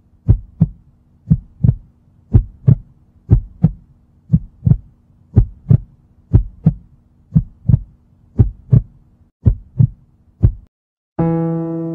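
Heartbeat sound effect: slow double thumps, lub-dub, about once a second over a faint steady hum. The beats stop near the end and a held electric piano note begins.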